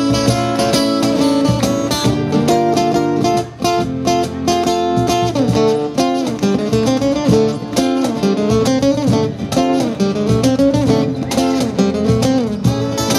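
Live acoustic music: two acoustic guitars strummed steadily with a cajón beat, and a melody line sliding up and down over them in the middle part.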